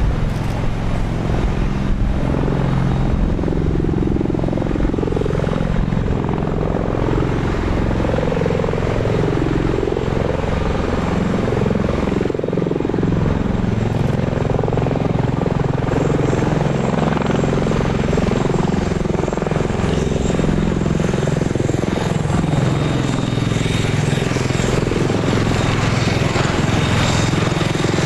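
Two Bell Boeing MV-22B Osprey tiltrotors flying in helicopter mode: the deep, fast beat of their big proprotors over the turboshaft engines' drone, loud and steady, with the tone wavering slightly as they fly.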